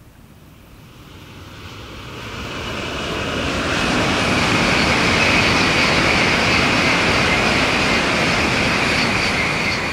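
Tokaido Shinkansen high-speed train passing at speed on an elevated viaduct: a rushing noise that builds over the first few seconds, holds loud and steady, then starts to fade near the end.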